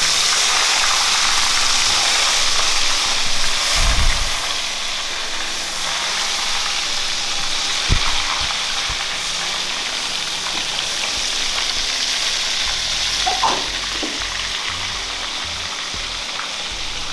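Halved eggplants sizzling steadily as they fry in hot oil in a wok. A couple of short knocks come about four and eight seconds in.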